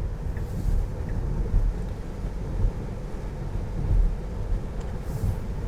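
Steady road and tyre rumble inside the cabin of a Tesla Model 3 electric car at highway speed, with no engine note, and two faint swishes about half a second in and near the end.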